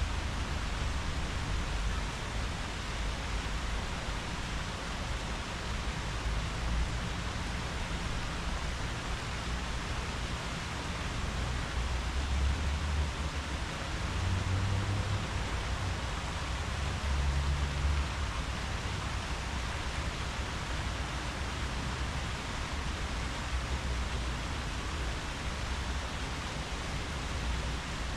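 Steady hiss of wind through tree leaves, with low rumbles of wind on the microphone about twelve, fifteen and eighteen seconds in.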